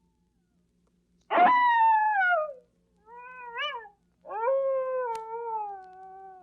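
Coyote calls from a vintage sound effects record. The first is a loud, falling howl, then a short quieter yelp, then a long howl that rises and slowly sinks in pitch. A faint click sounds once during the last howl.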